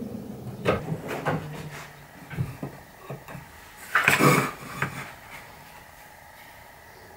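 Workbench drawer being pushed shut, with several knocks and the rattle of pencils and pliers in their trays. About four seconds in comes a louder short scrape of a steel ruler laid and slid across a sheet of paper on the bench top.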